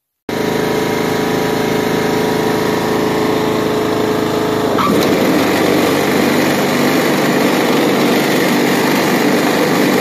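A Troy-Bilt riding lawn mower's engine runs steadily. About five seconds in there is a click, and the sound turns rougher and rattling as the blades engage. The rattle and roughness come from damaged mower blades.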